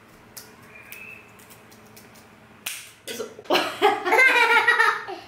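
Scissors cutting through wooden popsicle sticks: a few small snips, then a sharp crack a little under three seconds in. After that a high-pitched child's voice rings out loudly and excitedly.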